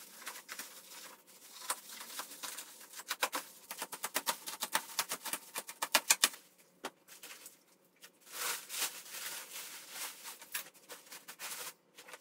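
Polyethylene wrapping film crackling and rustling as it is pulled and torn off a new dust collector: a dense run of sharp crackles, loudest about six seconds in, with a short lull a little later.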